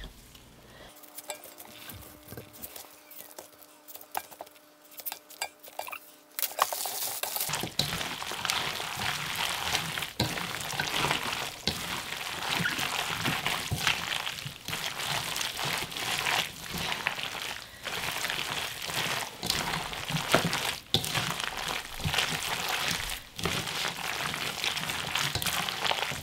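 Napa cabbage being hand-mixed with a wet red-pepper and radish kimchi seasoning in a stainless steel bowl: squishing and crinkling with many short strokes, much louder from about seven seconds in. Before that it is quieter, with light clicks and a faint steady hum.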